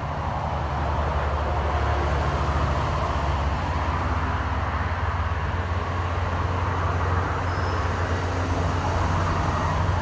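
A steady low rumble with a faint hum in it, unchanging throughout.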